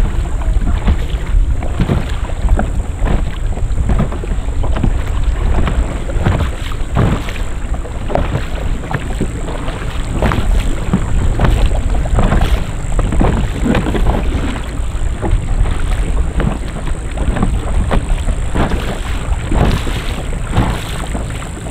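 Kayak moving across open water, with wind buffeting the microphone in a heavy, steady rumble and water splashing against the hull in irregular slaps.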